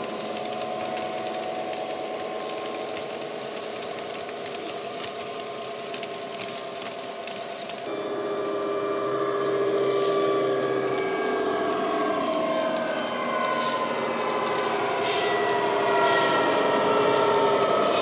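Recorded Class 66 diesel engine sound (EMD two-stroke V12) played from a DCC sound decoder through a model locomotive's small speaker as the model runs with a freight train. The engine note holds steady, then about eight seconds in it becomes louder and its pitch slowly shifts as the loco comes close.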